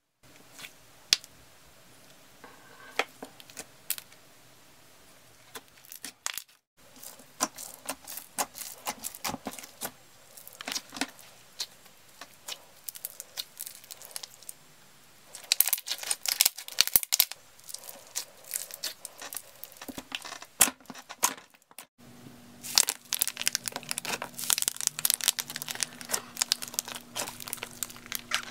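Slime being squished, poked and stretched by hand, giving an irregular run of clicks, pops and crackles. It comes in several short clips cut one after another, busier and louder in stretches from about halfway.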